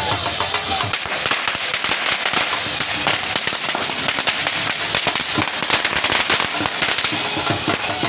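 A string of firecrackers going off as a rapid, irregular crackle of sharp bangs.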